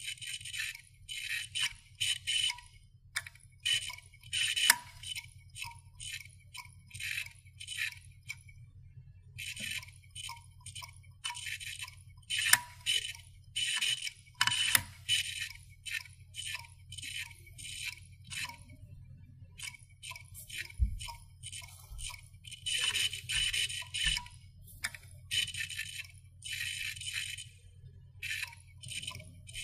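Irregular bursts of dry scratching, each under a second long, with sharp clicks among them and a faint low hum underneath.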